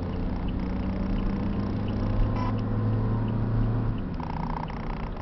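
A car's engine and tyre noise heard from inside the cabin while driving: a steady low hum that swells over a couple of seconds and eases off about four seconds in. There is a short click near the middle.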